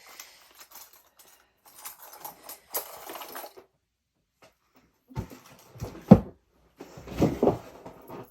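Rummaging through small items while searching for a necklace: faint clicks, clinks and rustling, then after a short pause several louder knocks and bumps close by, the loudest about six seconds in.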